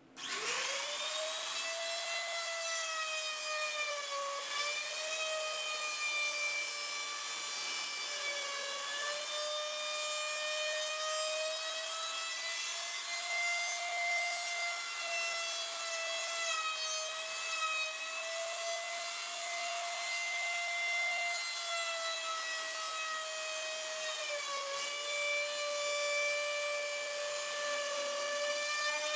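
Electric trim router switched on and spinning up to a steady high whine, cutting a plywood piece. Its pitch dips briefly a few times as the bit takes load.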